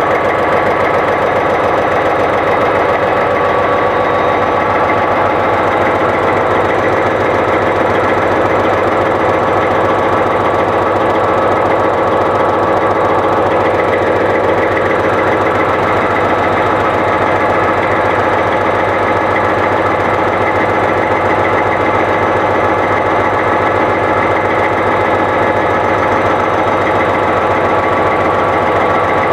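EMD 645 V12 turbocharged two-stroke diesel running steadily, heard right over its open rocker boxes, with a fast, even mechanical clatter from the valve train.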